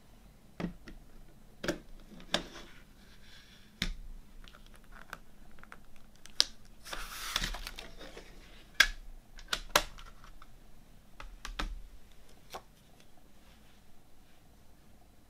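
Clear plastic CD jewel case being handled and opened: a string of sharp plastic clicks and taps, with one brief scraping rush about seven seconds in.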